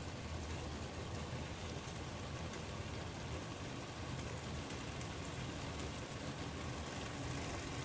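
Beef offal sizzling steadily as it is sautéed in a pan, cooking down until dry.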